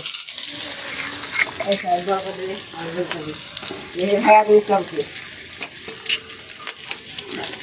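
Chopped onion sizzling in hot oil on a large iron tawa, the hiss starting suddenly as the onion goes in and going on steadily while it is stirred. A faint voice-like sound is heard in the background about four seconds in.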